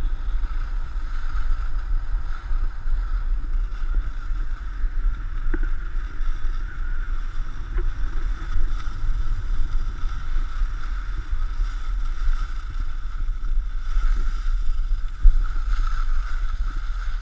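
Wind rumbling and buffeting against a helmet-style action camera's microphone as a skier moves downhill, over a steady scrape of skis on packed snow. One louder bump near the end.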